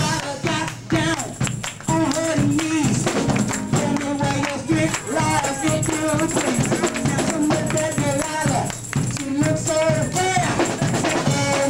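Upbeat gospel praise music with singing, a tambourine and a steady beat.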